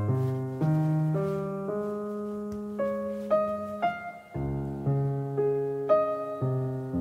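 Background piano music, notes changing about every half second over low bass notes.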